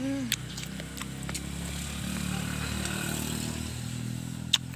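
A vehicle engine running as it passes, at its loudest around the middle and fading toward the end. A single sharp click near the end.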